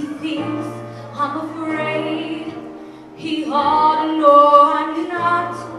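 A woman sings a slow show tune into a microphone, holding long notes that swell loudest in the second half. A keyboard accompanies her with held bass notes.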